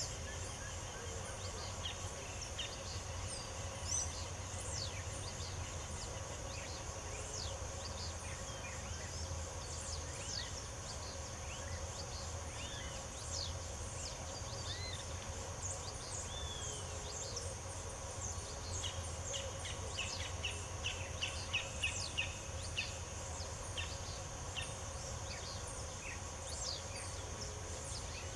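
Countryside ambience: scattered bird chirps and short calls over a steady high insect drone and a low steady hum. A quick run of repeated chirps comes about two-thirds of the way through.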